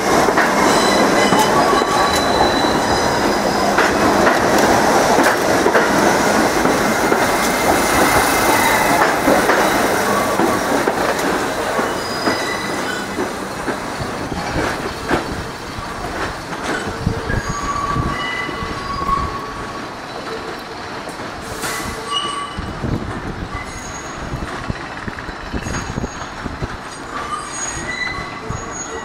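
An R68 subway train passing close and pulling away, its wheels rumbling and clattering over the rails with short, high squeals. The rumble is loud for the first dozen seconds or so, then fades as the train recedes, leaving intermittent squeals.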